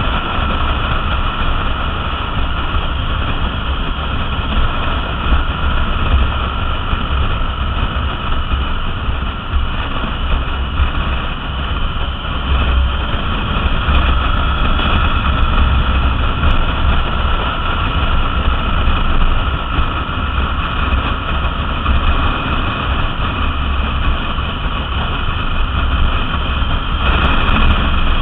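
Triumph Bonneville T100 parallel-twin motorcycle engine running at a steady cruise, heard under heavy wind buffeting on the microphone from riding speed.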